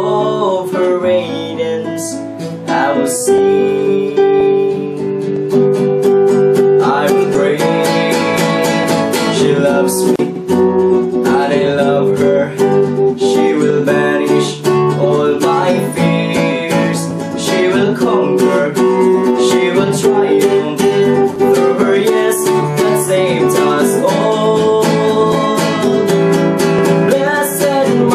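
A man singing while strumming an acoustic classical guitar.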